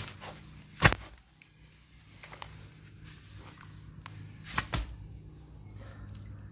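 Rubber wellington boot stamping into wet mud and puddle water, the loudest splash about a second in. A little past the middle the pulled-off boot drops onto the mud with another wet smack.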